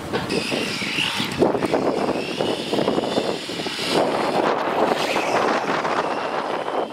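1/10-scale RC car driving on rough asphalt: a steady rumble of tyres on the coarse road surface, with a high motor whine that rises in pitch near the start and again about halfway through.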